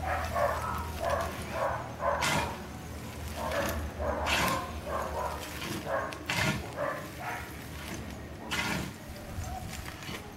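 A metal shovel scraping up hot embers and tipping them onto a mud-sealed cooking pit: four strong scrapes about two seconds apart, with shorter, smaller scrapes and rattles between them.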